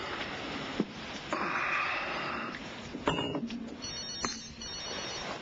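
Telephone ringing with a high electronic trill that starts about four seconds in, shortly after a short clink.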